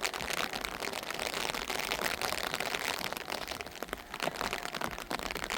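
Heavy rain falling: a dense, steady patter of many small drop impacts.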